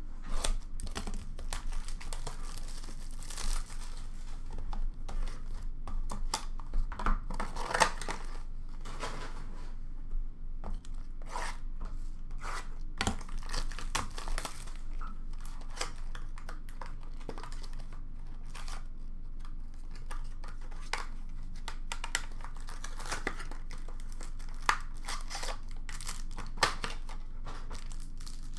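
Trading-card box and pack wrappers being torn open and handled, with irregular crinkling and tearing of plastic and paper packaging throughout.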